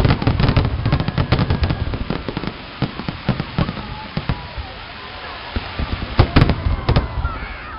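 Fireworks display: rapid volleys of aerial shells bursting and crackling, densest in the first two seconds and again around six to seven seconds in.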